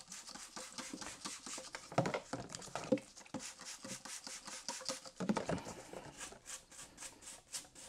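Faint paintbrush scrubbing with mineral spirits inside an empty lathe headstock casting, mixed with squirts from a trigger spray bottle. Near the end the brushing turns into quick, even back-and-forth strokes, about five a second.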